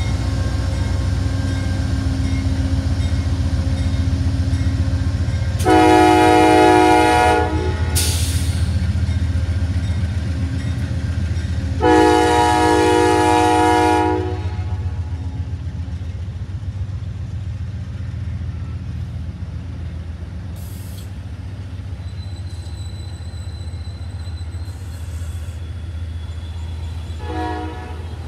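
Amtrak P42DC diesel locomotive rumbling as it pulls a passenger train past, sounding its chime horn in two long blasts about six and twelve seconds in, then a brief faint toot near the end. The rumble slowly fades as the cars roll away.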